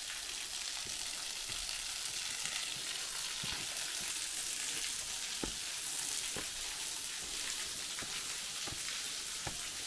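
Steady hiss of falling water from a thin waterfall spilling over a rock overhang, with scattered light footsteps on stone steps.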